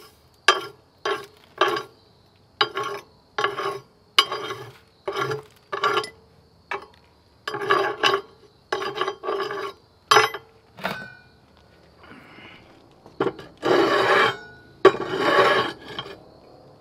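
Steel drill shavings being swept by hand across a drilled steel plate, a string of short scrapes at roughly one to two a second with the plate ringing faintly under them. Near the end come two longer, louder scrapes.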